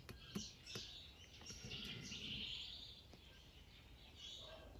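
Very quiet background with faint bird chirps and a few soft clicks.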